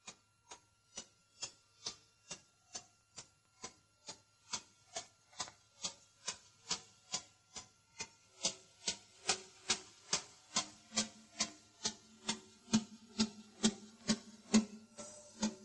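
A steady clock-like ticking, a little over two ticks a second, that grows louder about eight seconds in. From about ten seconds in, each tick carries a low note, like a musical accompaniment keeping time.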